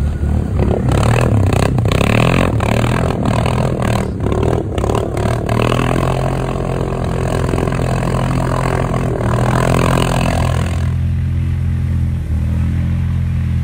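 ATV engine revving and labouring as the quad churns through deep pond water, with a heavy hiss of spray and repeated surges of splashing. About eleven seconds in the water noise stops and a quad engine runs on steadily.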